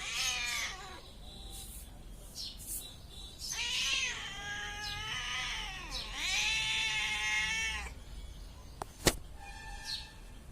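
Domestic cat meowing: a short meow at the start, then two long, drawn-out meows about three and a half and six seconds in. Short high chirps come between the calls, and a single sharp click near the end is the loudest sound.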